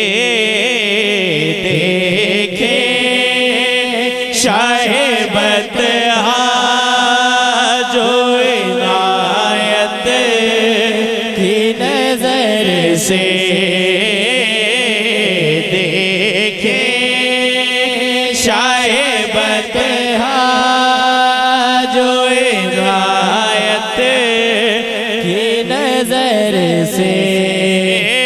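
A man's voice singing a naat, an Urdu devotional song in praise of the Prophet, through a microphone and loudspeaker. He sings long, drawn-out phrases that glide up and down in pitch, over a steady low tone underneath.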